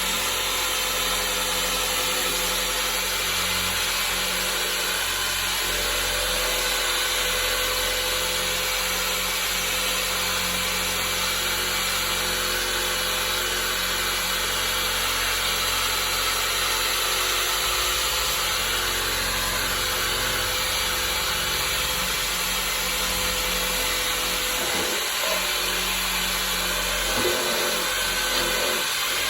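Power drill spinning an abrasive scuff ball against a surface, a steady whine with a constant rasping hiss as old surface material is scuffed off before repainting.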